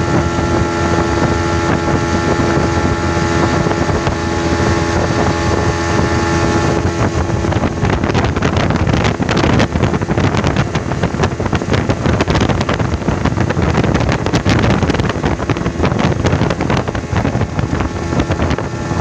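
A small speedboat's engine running steadily at cruising speed, with wind buffeting the microphone, gustier from about seven seconds in.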